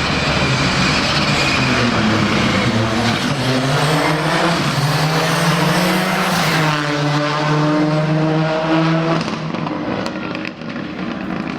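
Rally car engine at full throttle, revs climbing, then a sharp drop in pitch about six and a half seconds in as it shifts up, after which it pulls steadily and begins to fade near the end.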